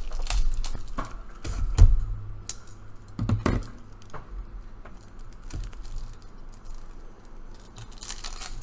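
Hands handling a boxed deck of game cards on a tabletop: several knocks and taps, the loudest about two seconds in, then softer small ticks and a light rustle near the end, over a low steady hum.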